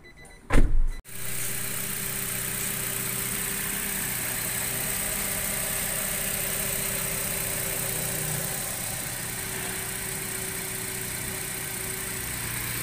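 A loud thump about half a second in, then a Nissan Evalia's engine idling steadily with a steady hiss.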